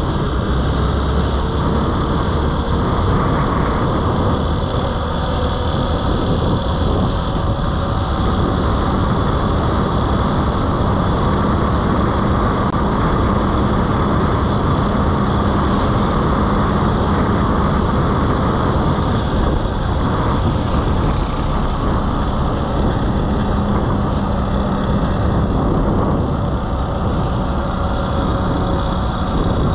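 Motorcycle engine running steadily as the bike rides along at an even speed, under a dense rush of wind and road noise.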